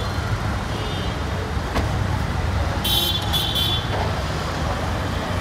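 Busy road traffic with a steady low rumble of engines; a high-pitched vehicle horn honks for just under a second near the middle, and there is a single knock a little before it.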